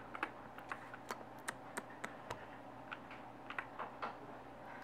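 Light, irregular clicks and taps, a few a second.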